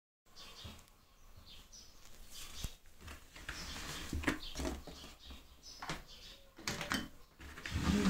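Handling noise: scattered rustles, light knocks and clicks, with a few faint high chirps.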